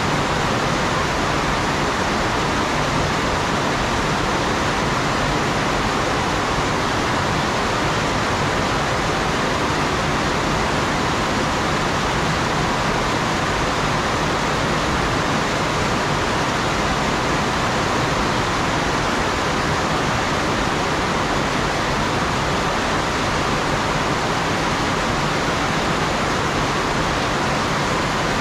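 Heavy rain falling in a steady, even downpour, with no thunderclap.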